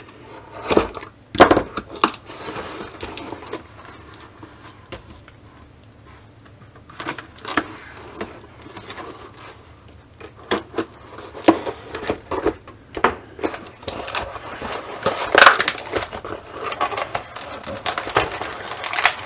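A cardboard parcel being opened with a pocket knife: the blade cutting and tearing packing tape, and cardboard flaps scraping and rustling, in scattered short bursts, loudest about fifteen seconds in.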